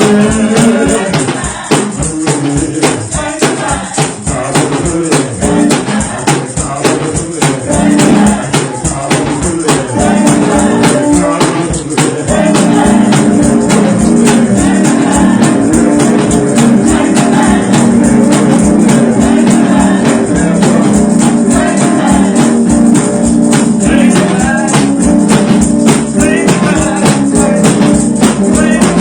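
Gospel music: voices singing over percussion that keeps a fast, steady beat.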